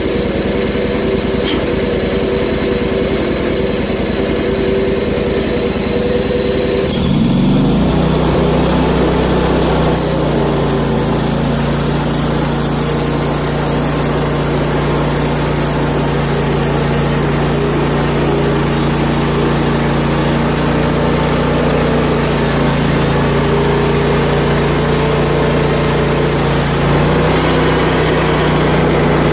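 Gas engine of a portable bandsaw mill running; about seven seconds in it revs up, and from about ten seconds a steady engine note carries the noise of the band blade sawing through the log cant.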